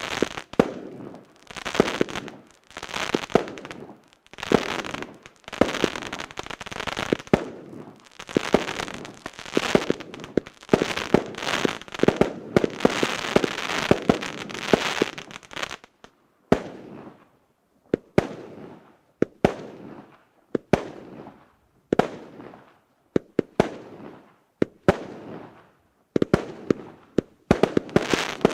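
The RK8060 'Devichnik' firework cake, a 120-shot battery of 0.8-inch tubes, firing in rapid succession: sharp launch bangs, each followed by a crackling burst. The shots come thick and overlapping for about the first half, then spaced apart, each crackle trailing off before the next shot.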